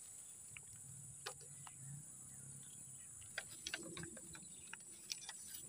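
Quiet swamp ambience: a steady high-pitched insect hum, with a few faint scattered clicks and taps.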